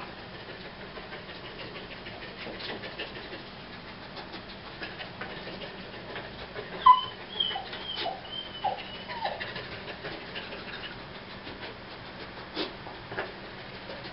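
A dog whining and whimpering, a quick run of short calls, some falling in pitch, about seven seconds in. The dog is sniffing along filing cabinets for a scent hide placed up high.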